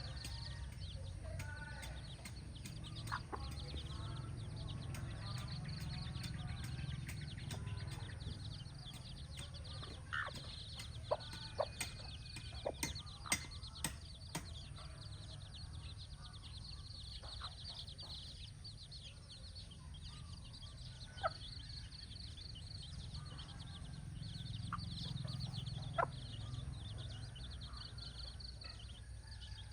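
Hen clucking, with a cluster of sharp clicks in the middle, over a steady low rumble.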